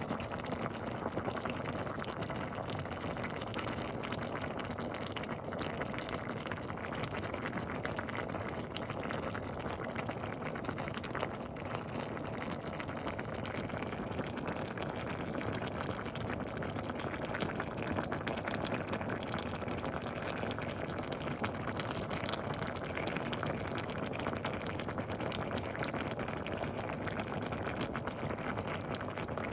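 A pot of green mung beans boiling: a steady bubbling with fine crackles throughout.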